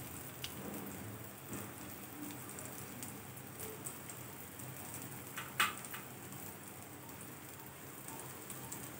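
Semolina-coated corn cutlets shallow-frying in oil in a nonstick pan over a low flame: a faint, steady sizzle with light crackling. A single sharp click comes a little past halfway.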